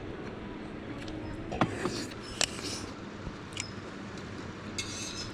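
A few sharp clicks and knocks, with a brief rustle near the end, as small objects are handled.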